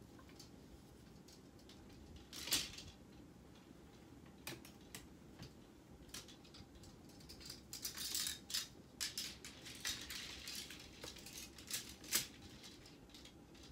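Clothes hangers clinking and scraping on a closet rod while hanging clothes are sorted. Scattered clicks, with a sharp clack about two and a half seconds in and a busier stretch of clatter in the second half.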